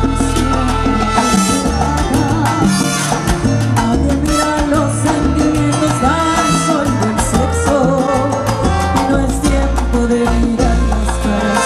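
Live salsa band playing: a woman sings the lead over congas, timbales, bass and horns, with a steady dance beat.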